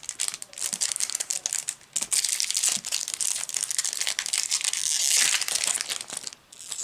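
Foil wrapper of a Yu-Gi-Oh booster pack crinkling and crackling as it is torn open and peeled back by hand, dying away near the end.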